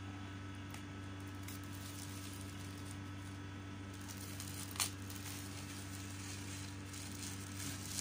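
Thin clear plastic wrap crinkling faintly as it is peeled off a cardboard laptop box, with one sharp click about five seconds in. A steady low hum runs underneath.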